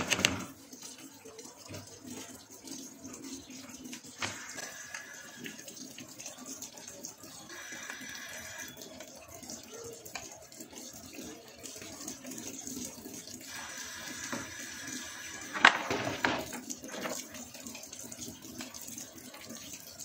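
A spoon stirring a thin flour batter in a bowl, the liquid sloshing softly, with a sharp clatter right at the start and again about 16 seconds in.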